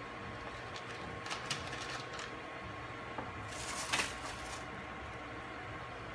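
Small plastic clicks and a brief rustle of pipette tips being changed on a lab pipette, the rustle loudest about four seconds in. A faint steady electronic whine runs underneath.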